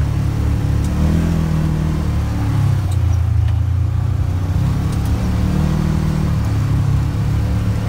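Engine of a Polaris General side-by-side running as it drives, its note rising and falling with the throttle, heard from the driver's seat.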